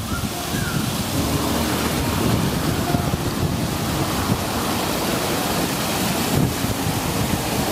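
Steady rush and patter of water spraying and splashing from a children's water-play structure into its shallow pool, with wind buffeting the microphone.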